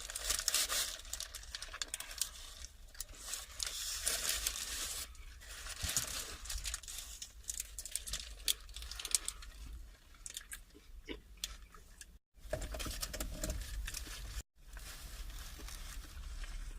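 Close-miked eating of a lamb wrap: chewing and biting with wet mouth clicks and crunches, mixed with the wrap's paper wrapper crinkling. The sound cuts out completely twice, briefly, in the last few seconds.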